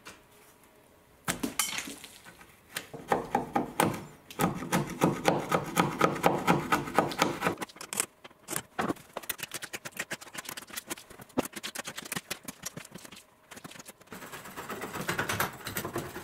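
Metal hand tool scraping and chipping cured concrete-fill-and-glue mudding compound out of the narrow gap between a drywall corner bead and a brick wall: a long run of quick scrapes and clicks, some ringing, starting about a second in and easing off briefly near the end. The compound was left to cure and has set too hard to dig out easily.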